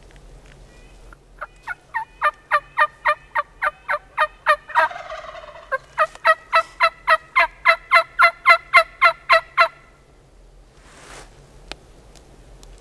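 Loud, rapid series of turkey yelps, about four a second, broken for about a second in the middle by a harsher, raspier call, then resuming until it stops near the end.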